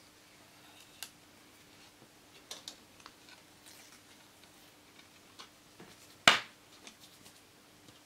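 Small clicks and taps from the clear plastic tray of a CD jewel case being handled and fitted, with one loud sharp click a little past six seconds in.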